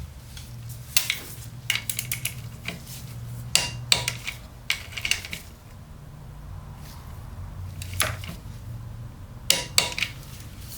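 Metal hand tools clinking and clicking in scattered short, sharp knocks, as a socket and torque wrench are handled on a motorcycle drain plug.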